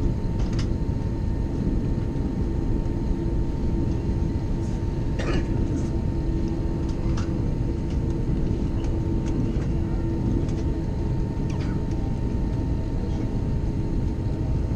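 Steady low rumble of an Airbus A321neo's cabin stopped at the gate, with a faint steady whine and scattered light clicks and knocks from the cabin. A hum under the rumble fades out about eleven seconds in.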